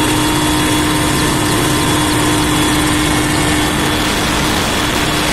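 Helicopter in flight heard from on board: loud, steady engine and rotor noise with a constant hum running through it.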